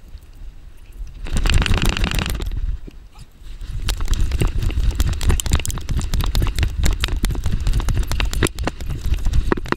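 Rapid clicks and knocks from a GoPro harness-mounted on a running basset hound, with its footfalls on sand and a low rumble of wind on the microphone. A louder rush of noise comes about one to two and a half seconds in.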